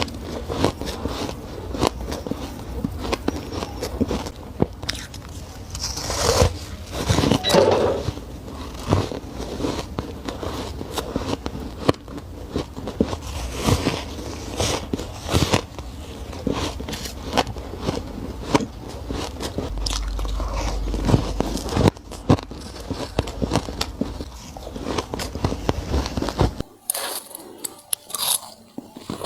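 Close-miked crunching of hard ice being bitten and chewed: a run of sharp, irregular crunches. Near the end the background changes suddenly as a different bite clip begins.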